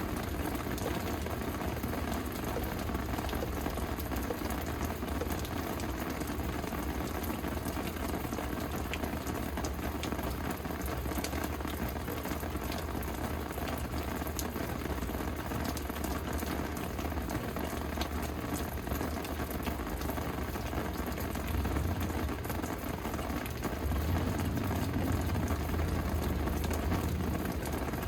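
Steady rain falling, with many small drop hits close by. A low rumble swells in near the end.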